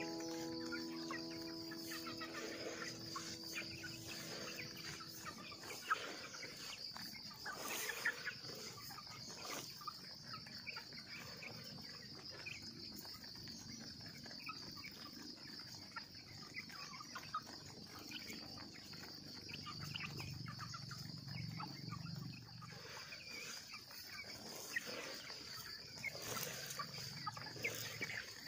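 A flock of white broiler chickens clucking softly and pecking feed off dry ground, with many small scattered pecks and calls. A steady high insect drone runs behind them.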